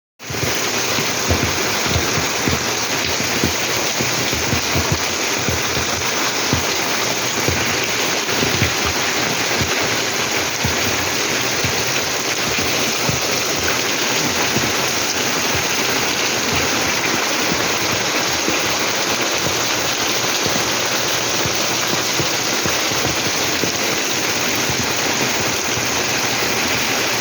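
Rain falling steadily: a dense, even hiss with many separate drops hitting close by.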